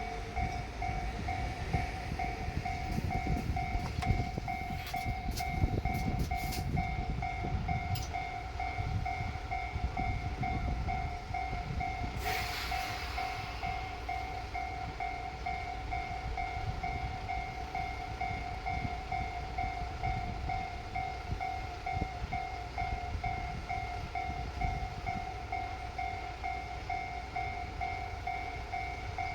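A Japanese level crossing's electronic warning bell rings steadily throughout, over the low rumble of a JR Shikoku 1500-series diesel railcar. A few sharp clicks come in the first several seconds, and a short hiss about twelve seconds in.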